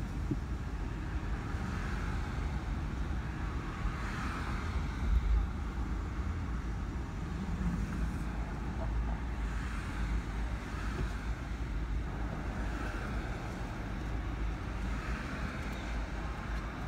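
Road noise heard from inside a moving car's cabin: a steady low rumble of engine and tyres in city traffic, with a brief louder bump about five seconds in.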